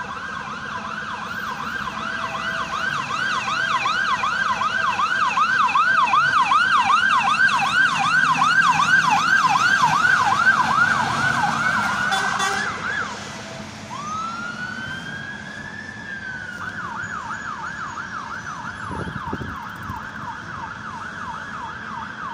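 Dublin Fire Brigade sirens yelping in fast rising sweeps, about three a second, growing louder as a fire engine passes. About thirteen seconds in the yelp stops and a single slower rising wail sounds. Then the yelping starts again, quieter.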